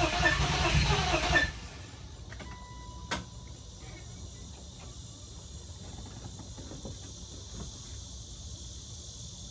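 BMW E36 engine being cranked by its starter motor, turning over in an even rhythm without firing, then cutting off about a second and a half in. A single click follows a couple of seconds later. The engine cranks but does not start.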